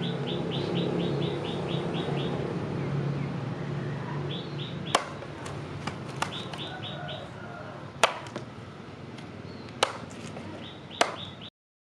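Four sharp knocks a few seconds apart, typical of hammer blows in a forging workshop, with birds chirping in quick bursts. A steady low hum fades out over the first few seconds, and the sound cuts off suddenly near the end.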